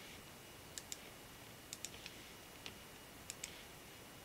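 Computer mouse clicking: faint, sharp clicks, mostly in quick pairs, about one group a second.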